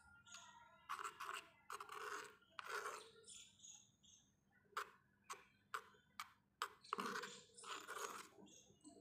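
Metal spoon stirring and scraping a thick potato sabji in a small clay pot: a few wet stirring strokes, then a run of short sharp clicks of the spoon against the pot in the middle, then more stirring near the end.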